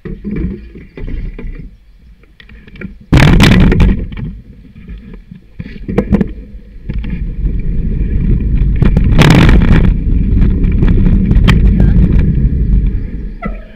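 Bicycle riding along a tarmac path, heard through a handlebar-mounted camera: a low rumble of wind and road vibration with sharp clicks and knocks from the rigid mount. It swells loud about three seconds in and again for most of the second half.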